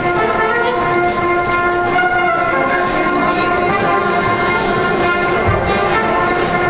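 A brass band playing held, full chords over a steady percussion beat of a little more than two ticks a second.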